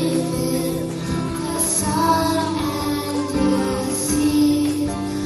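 Young female voices singing a song, accompanied by a strummed acoustic guitar, with long held notes.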